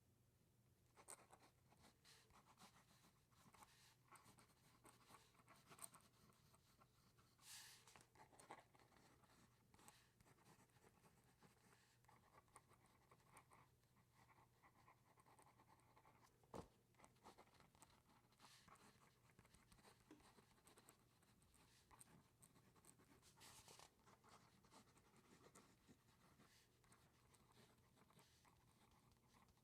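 Pen writing on paper: faint, irregular scratching strokes of the nib, with a sharper tick of the pen about halfway through.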